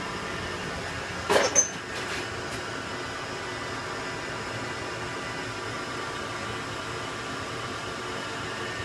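Boley 5LZ toolroom lathe running, a steady machine hum with several fixed whining tones. About a second and a half in come two or three short, sharp knocks, after which the hum carries on unchanged.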